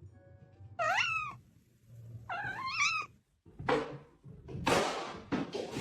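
A domestic cat meowing twice, each meow rising and then falling in pitch. Near the end come loud bursts of rushing noise.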